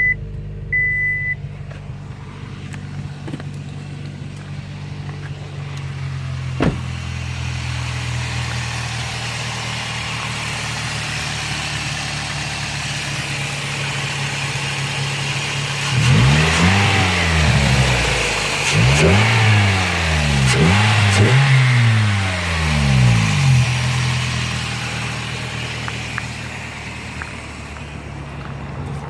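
2005 Scion xB's 1.5-litre four-cylinder, breathing through a DC header, Injen cold air intake and Scion axle-back exhaust, idling steadily, then revved four times in quick succession past the middle, each rev rising and falling back toward idle. Two short beeps sound at the very start.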